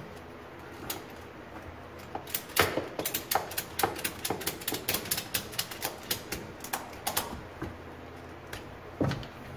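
Ratchet strap on a battery hold-down being cranked tight: a quick run of sharp ratchet clicks, several a second for about five seconds, starting about two seconds in. One more knock comes near the end.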